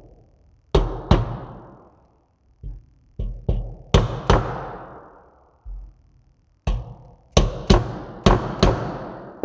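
An orange mallet tapping a metal grille bar of an Aston Martin DB9 grille to drive it into its plastic uprights: about a dozen light taps, mostly in quick pairs, each a ringing tink. The tink rather than a thud means the bar has not yet bottomed out in its slots.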